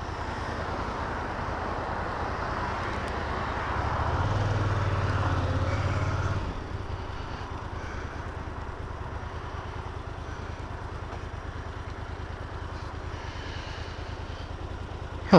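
Motorcycle engine running under way: it pulls harder and louder for a couple of seconds around four to six seconds in, then drops back to a steady low hum as the bike eases off and waits at the lights. A sharp knock comes right at the end.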